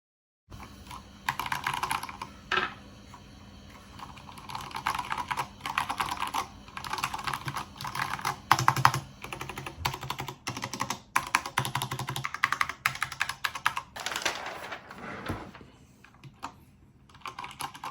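Cherry MX 8.0 mechanical keyboard with Cherry MX switches and metal keycaps being typed on: runs of rapid keystroke clicks separated by short pauses.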